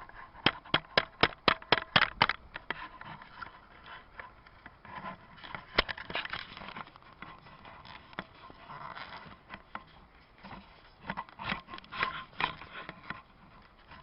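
Scraping and knocking: a quick run of sharp knocks, about four a second, in the first two seconds or so, then scattered knocks and scrapes, with another cluster near the end.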